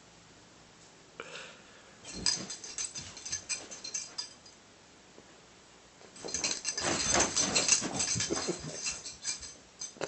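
A dog reacting to a banana held up close to it: short bursts of clicky, scuffling sound, the longest and loudest from about six seconds in to near the end.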